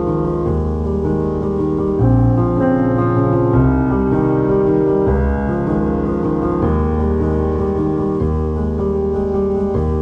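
Background piano music, with chords changing every couple of seconds.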